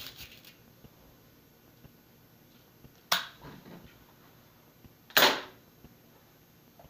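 Multi-pump air rifle on a low, two-pump charge being worked and fired. A few clicks come at the start, then a sharp crack about three seconds in and a louder crack about five seconds in.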